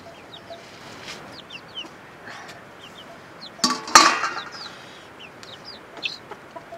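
Chickens making repeated short, high, falling chirps. About four seconds in, a steel plate used as a pot lid clangs loudly with a brief ringing note as it is lifted off the cooking pot.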